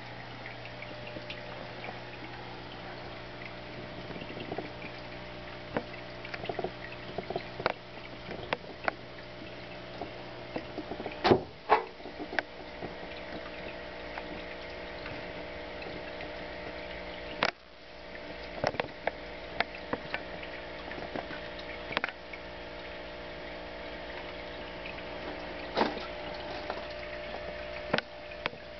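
Aquarium pump humming steadily with water bubbling and trickling in the tank, broken by scattered sharp clicks and knocks, the loudest a pair about halfway through and another a few seconds later. The lowest part of the hum drops away at the first loud knock.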